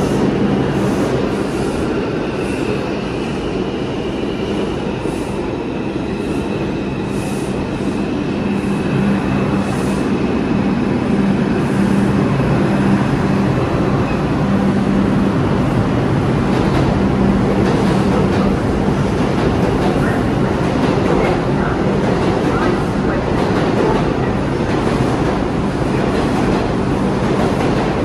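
New York City subway train running into an underground station and slowing to a stop: a steady rumble of wheels and motors under a low hum, with a thin high squeal through roughly the first half.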